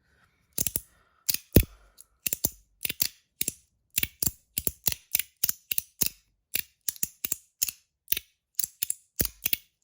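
Metal EDC slider fidget being slid open and shut over and over: sharp clicks at about three a second, some in quick pairs.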